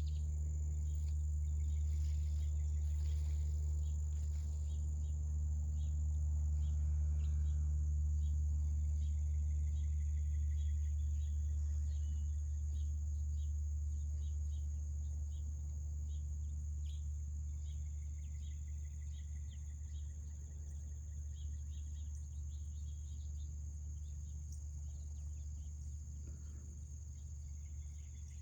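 Steady high-pitched trill of insects such as crickets, unbroken throughout, over a louder low steady hum, with scattered faint ticks and short chirps.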